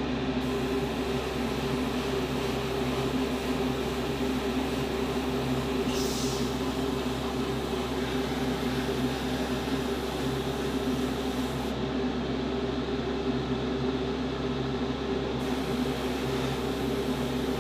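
Spray booth extraction fan running with a steady hum, with a short hiss about six seconds in.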